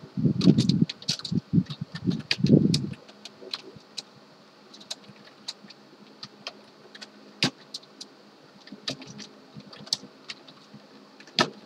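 Scattered sharp clicks of a computer keyboard and mouse being operated, irregular and spaced out, with a few low muffled thuds in the first three seconds.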